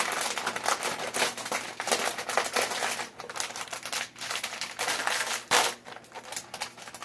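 A bag of Lay's fried crab potato chips crinkling and crackling as it is handled. The crackles come in irregular runs and thin out near the end.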